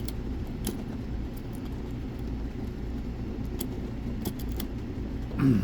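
Faint, scattered small clicks from a key and lock being handled, over a steady low hum.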